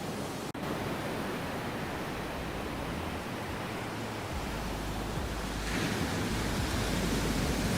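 Steady rushing noise of sea waves heard under water, with a very brief gap about half a second in. It swells louder about six seconds in.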